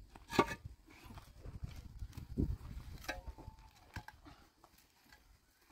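Hollow concrete blocks being set down and shifted into place on a concrete foundation: a few sharp knocks and scrapes, the loudest shortly after the start.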